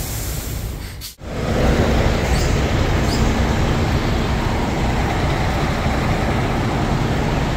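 Diesel engines of container semi-trucks idling and running close by, a steady low rumble with a hum through it. The sound drops out briefly about a second in.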